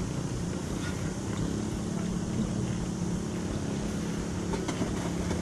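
A 23-90 Baker steam traction engine running under load on a Baker fan: a steady rush of fan air and working machinery with a constant low hum. The hum steadies about a second and a half in.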